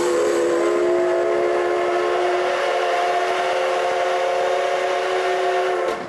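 Whistle of a C58 steam locomotive giving one long blast of several notes at once, rising a little in pitch as it opens, then held steady for about six seconds before cutting off sharply: the departure signal as the train is about to pull out of the station. Heard from inside a coach behind the engine.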